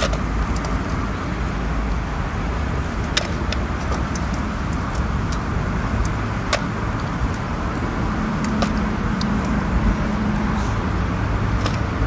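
Small gobies deep-frying in a pot of hot oil, a steady sizzle, with scattered sharp clicks of chopsticks against the aluminium pot and foil tray.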